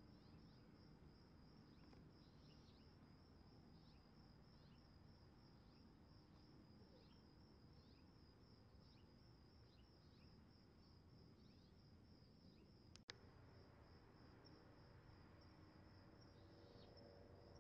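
Faint, steady chirping of crickets, a fast even pulse, with short falling chirps now and then and one sharp click about two-thirds of the way through.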